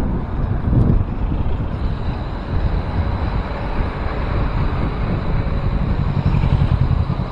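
Wind rumbling on the microphone of a camera riding on a moving bicycle, with motor traffic running close by in the street.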